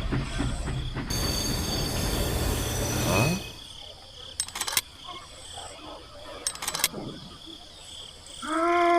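A small motorised model, likely the mini train's electric motor, running with a dense whirring noise, then stopping about three seconds in. After that, two short rattles and a quiet background.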